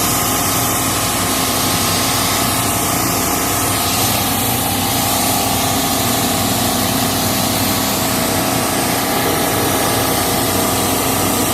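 Commercial refrigeration unit running: a steady mechanical hum with a hiss over it, unchanging throughout.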